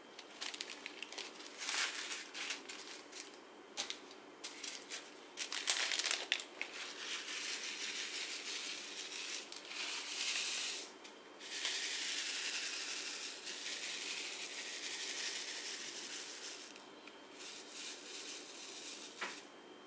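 Small plastic zip bags of diamond-painting drills crinkling as they are handled and opened, then square resin drills poured into a plastic sorting tray and shaken. The shaking gives a steady rattling hiss of many tiny pieces sliding for about five seconds, with a few more crinkles near the end.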